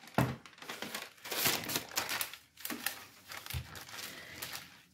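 Parchment paper crinkling and rustling as the top sheet is peeled back from biscuit dough and laid down again, then pressed under a wooden rolling pin. The rustles come in irregular bursts.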